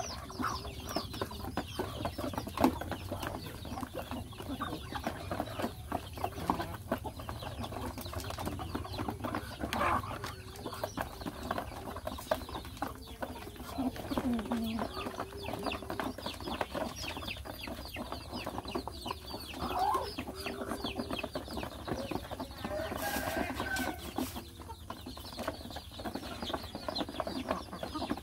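Chickens clucking as they feed, with short calls scattered through a dense, rapid patter of beaks pecking at grain in a tray.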